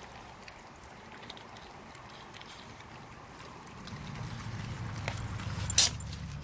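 Puppy chewing raw fish, faint gnawing with a few small ticks. About four seconds in, a low rumble builds, and a single sharp knock comes near the end.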